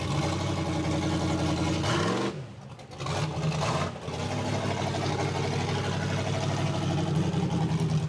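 Tube-frame off-road buggy's engine revving hard under load on a steep mud climb. Its note dips briefly about two and a half seconds in, then runs steady again.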